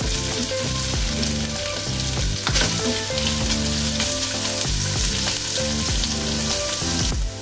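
Pork, onion and garlic sizzling in hot oil in a frying pan during a sauté, stirred with a silicone spatula. The sizzle is a steady hiss, dipping briefly near the end.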